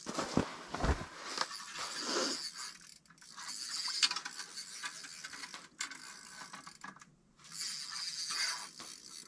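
Ice-fishing reel being cranked by hand to bring the line up, its gears clicking and ratcheting in spurts with short pauses. There are a couple of dull knocks about a second in.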